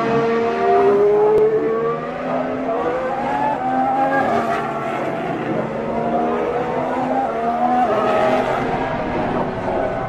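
Formula 1 cars' 1.6-litre V6 turbo-hybrid engines running hard through corners. The engine note climbs and drops in steps as the gears change.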